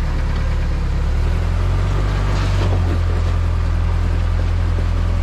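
Toyota pickup's engine running steadily at low revs while crawling, as its 42-inch Irok tire climbs onto a boulder.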